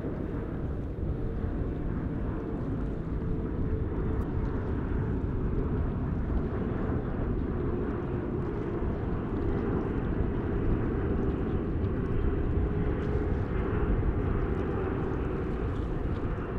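Jet airliner coming in to land: engine rumble with a faint steady whine, slowly growing louder as it approaches.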